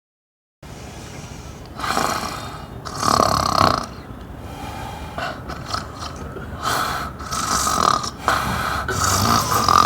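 A woman snoring loudly: a run of rough, irregular snores, each about a second long, starting after a brief silence.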